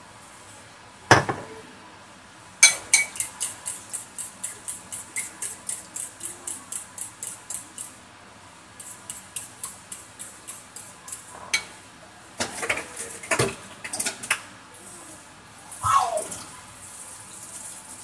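Gas stove igniter clicking in a rapid, even run of about four clicks a second for several seconds, then a second, fainter run. A sharp knock comes just before the first run, and a few clanks of metal cookware come near the end.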